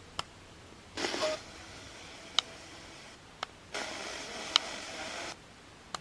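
Portable AM/FM radio's speaker scanning stations: short fragments of station audio cut in and out with faint hiss between, punctuated by several sharp clicks. One fragment is brief, about a second in; a longer one runs for about a second and a half near the end.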